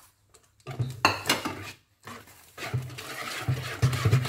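A wire hand whisk in a mixing bowl of almond-cake batter: a few clinks and knocks against the bowl, then from about two seconds in a fast, steady whisking that beats melted butter into the batter.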